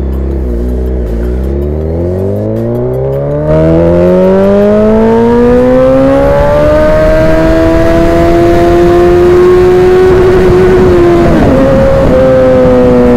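Suzuki Hayabusa's inline-four engine pulling hard under acceleration, its pitch climbing steadily for several seconds and getting suddenly louder about three and a half seconds in. There is a brief dip near the end as it shifts up a gear.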